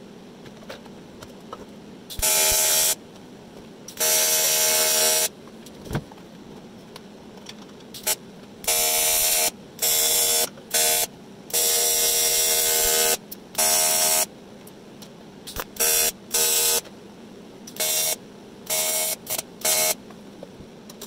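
AC TIG welding arc buzzing on aluminium: the arc is struck and broken again about a dozen times, in bursts from a fraction of a second to about a second and a half long, as a tube handle is welded onto an aluminium hull.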